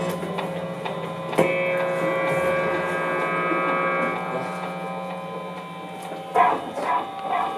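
Electric guitars through effects pedals and amplifiers holding a steady, humming drone. A chord is struck about a second and a half in and rings on. Short repeated notes swell in near the end.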